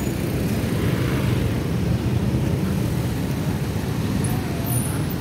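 Street traffic: a steady low drone of motorbike and car engines running close by.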